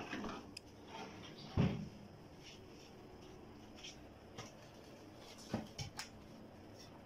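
A metal baking tray lands on a kitchen counter with one solid thump about one and a half seconds in, then a few light knocks and clicks near the end as it is pushed into place.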